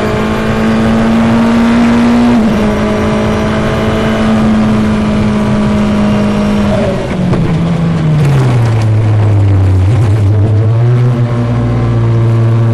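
Open-wheel single-seater race car's engine heard from the cockpit, running at high, steady revs. About seven seconds in, the revs fall smoothly, then hold steady at a lower pitch.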